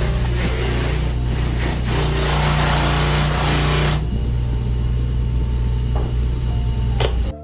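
An electric power tool working a wooden skateboard deck: a steady motor hum with a rasping noise over it. The rasp stops about four seconds in, and the motor runs on until the sound cuts off just before the end.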